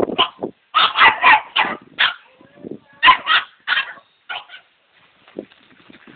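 A dog barking in quick runs of several barks, then only faint sounds over the last two seconds.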